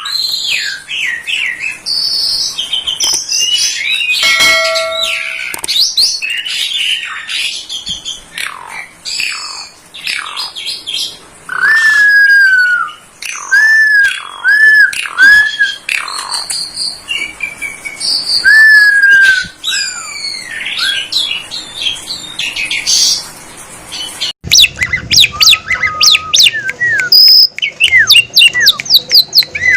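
Black-collared starling (jalak suren) singing a loud, varied song of whistles, chirps and repeated arched, down-slurred notes, with mimicked fill-ins of other calls. About 24 seconds in, the recording cuts abruptly to a fast run of sharp, rapidly repeated chirps.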